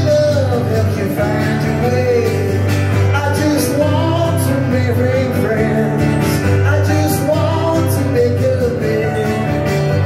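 Live music from strummed acoustic guitar and keyboard, with a melodic line over them and no sung lyrics.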